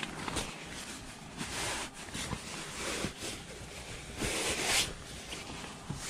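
Fabric rustling as a sleeping bag is pulled on and shifted about, in several short rustles, the longest about four seconds in.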